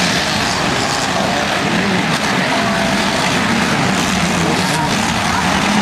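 Several demolition derby cars' engines running at idle in a stoppage, blended into a steady loud haze of noise.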